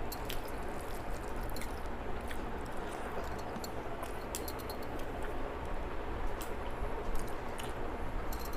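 A person chewing food, with small scattered clicks and wet mouth sounds of eating.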